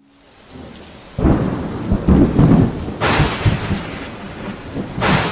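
Thunderstorm sound effect: rain with a heavy low rumble of thunder starting about a second in, and two sharp thunder cracks about three and five seconds in.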